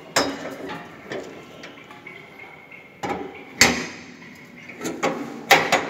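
Stainless-steel parts of an Electra 100 melanger knocking and clanking as the drum and its lever arm are handled and locked in place: three sharp metallic clanks with some ringing, near the start, past the middle and near the end, with lighter knocks between them. The grinder's motor is not running.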